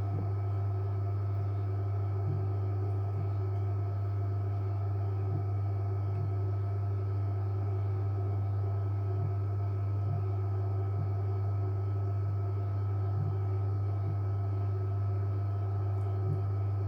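JW Ratcliffe and Sons electric pottery wheel running at a steady speed: an even motor hum with fainter steady whining tones above it.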